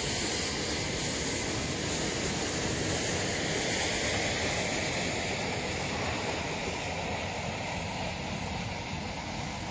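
Union Pacific gas turbine locomotives passing under power, a steady, even rushing noise that grows slightly quieter near the end.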